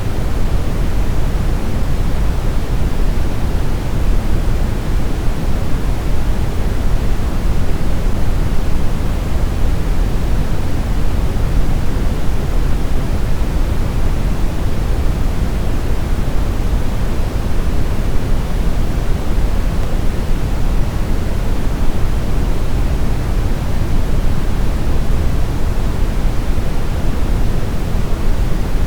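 Steady brown noise: an even, unchanging rumble that is loudest in the low end and falls away toward the highs.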